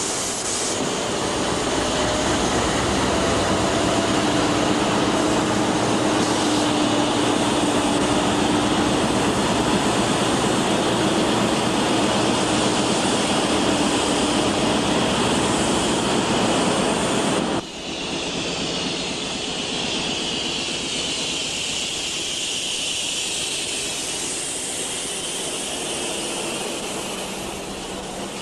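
Diesel locomotive running, heard close up on the locomotive as a loud, steady rumble with a faint held tone through the first half. About 17 seconds in the sound breaks off and resumes as a slightly quieter steady rumble.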